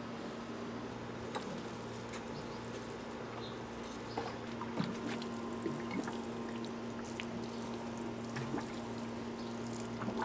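Water pouring from a plastic watering can onto soil at the base of a plant, trickling and pooling, with small drips and splashes scattered through the second half.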